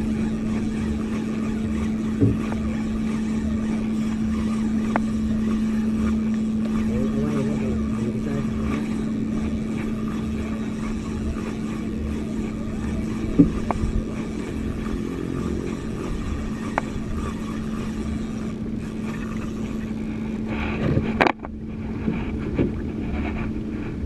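Motorized banca's engine running steadily, a constant even hum, with a few short knocks on the boat.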